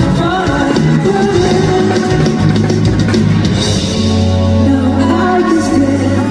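Loud pop song played over a concert sound system, an instrumental stretch with drums and a steady bass line.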